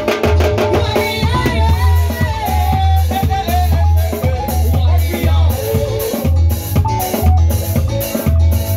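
Loud band music with a heavy bass line pulsing in a steady beat, a drum kit with a ticking cymbal, and a lead melody running over the top.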